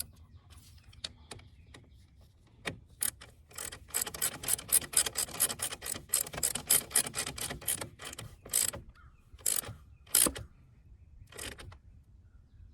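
Hand ratchet wrench with a 10 mm socket clicking as it tightens a car battery terminal clamp nut: a fast run of ratchet clicks, about five a second, then a few separate strokes as the nut snugs down.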